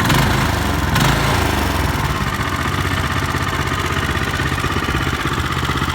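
Small engine of a walk-behind tiller running steadily at idle, with two brief knocks at the start and about a second in.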